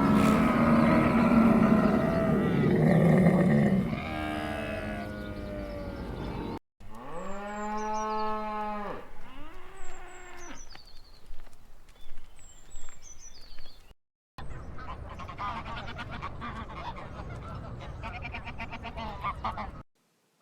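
Farm animal and fowl calls in several short clips cut one after another, with abrupt breaks between them. Near the middle comes one long pitched call, with high short chirps around it; the last part is a busy, noisy stretch of calls.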